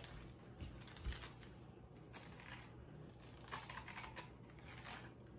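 A metal spoon scraping seeds and stringy pulp out of a halved spaghetti squash: faint, uneven scratchy strokes.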